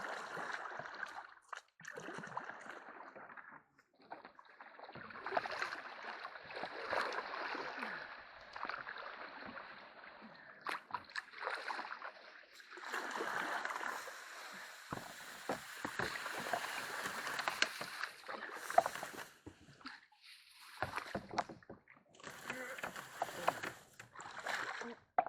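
Canoe being paddled through shallow, mucky creek water: irregular paddle splashes and swishes, with a few sharp knocks.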